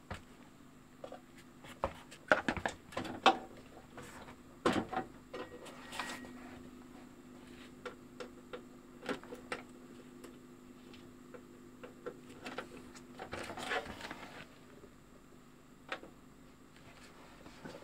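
Handling of a Marantz CD-5000 CD player: a series of clicks and clunks of its disc tray and controls, loudest in the first few seconds and again near the end, with a faint steady hum for several seconds in the middle.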